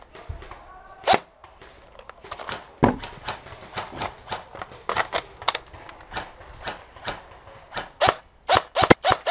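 Airsoft fire: a long run of sharp, irregular snaps and cracks, some with a short woody ring. It comes faster and louder near the end, several shots a second.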